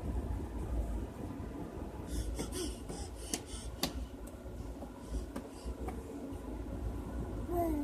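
A person yawning: noisy breathing from about two to four seconds in, and a short falling voiced sound near the end, over the steady low rumble of a moving train.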